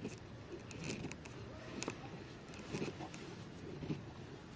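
Bushcraft knife (Dulo Knives Woody) shaving curls down a wooden stick to make a feather stick: about five short scraping strokes of the blade through the wood, roughly one a second.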